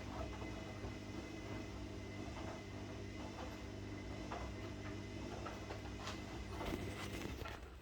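A pot of coconut-milk curry gravy coming up to the boil, with many small irregular popping ticks over a steady low hum.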